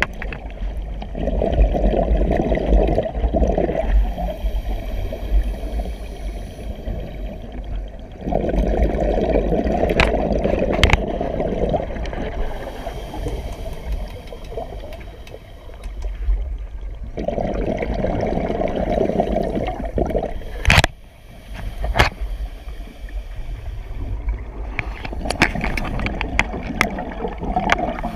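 Scuba diver breathing through a regulator underwater: long gurgling bursts of exhaled bubbles about every eight seconds, with quieter stretches between breaths. A few sharp clicks or knocks, the loudest about two-thirds of the way in.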